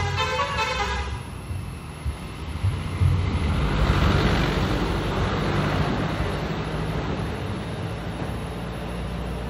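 A vehicle horn sounds briefly at the start. Then a motor vehicle passes on the road, its engine and tyre noise loudest about four seconds in and slowly fading.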